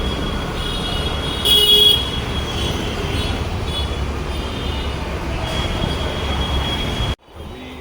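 Busy city street traffic: a steady rumble of vehicles with horns honking, and one loud horn blast about one and a half seconds in. Near the end the sound cuts off suddenly to a quieter background.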